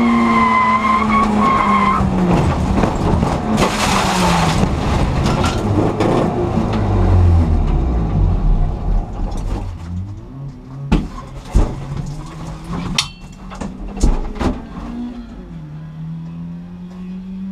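Inside a small race car: the engine note falls as the car slows, then a loud rushing, skidding noise as it slides off the track into the grass and comes to a stop. After that the engine runs low and quiet, with a few sharp knocks and clunks in the cabin, and its note rises briefly near the end.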